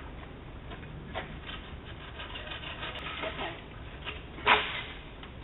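Bamboo being cut down: scattered cracks and leaf rustling, with one louder burst of rustling about four and a half seconds in, picked up by a doorbell camera's microphone.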